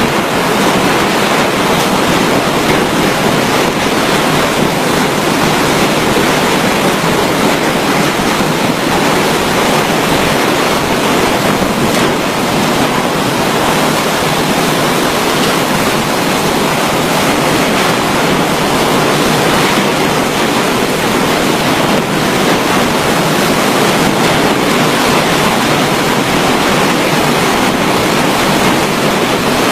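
Steady, loud rushing of typhoon wind and water, an unbroken roar with no distinct gusts or crashes.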